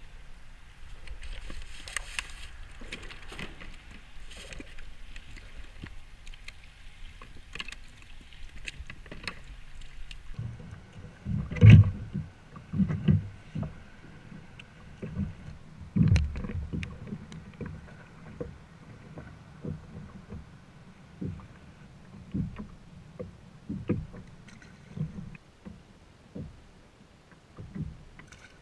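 Knocks, thumps and handling noises on a plastic fishing kayak while a caught fish is handled aboard. The two loudest thumps come about 12 and 16 seconds in, among many smaller ones.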